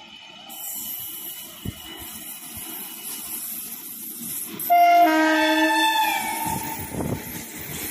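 Passing express train hauled by an Indian Railways electric locomotive, with a steady hiss of wheels on rail. About five seconds in, the locomotive's air horn sounds a chord for about a second and a half, sliding down in pitch as it ends.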